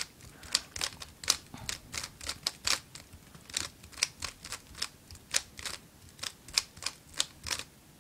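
Dayan Guhong v2 3x3 speed cube being turned quickly to scramble it. Its plastic layers make sharp, irregular clicks, several a second, which stop shortly before the end.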